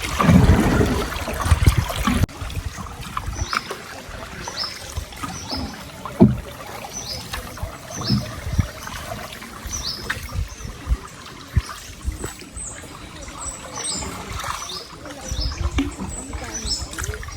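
Tropical birds calling in short, high, falling chirps, repeated about once a second, over a steady trickle of water. A loud low rumble fills the first two seconds.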